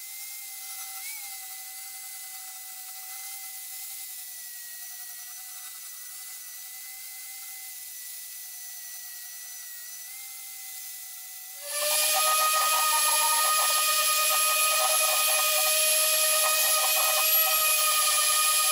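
Electric angle grinder with a flap disc running with a steady whine as it grinds down a weld bead on steel tubing. About twelve seconds in it gives way abruptly to a louder, hissier dual-action (DA) sander with a sanding disc working the same steel tube.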